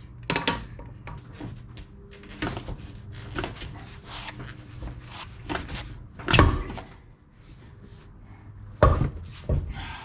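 Breaker bar and steel socket knocking and clicking against a car's wheel nuts in irregular metallic knocks. There is a heavier thump a little past halfway and another near the end.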